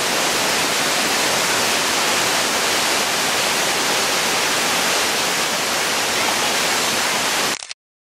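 Large waterfall pouring onto rocks and a pool: a loud, steady rush of water noise that cuts off abruptly near the end.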